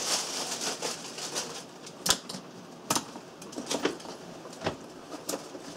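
A padded fabric carrying case being unbuckled and opened: its nylon rustles and flaps while its plastic strap buckles give a few sharp clicks, the clearest about two and three seconds in.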